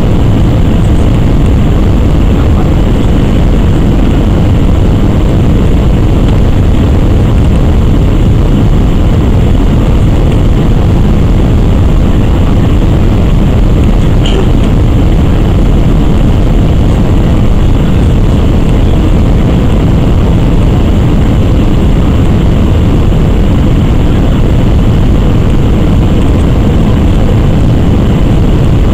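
Airbus A319-100 cabin noise heard from inside the cabin: a loud, steady, deep rumble of jet engines and airflow.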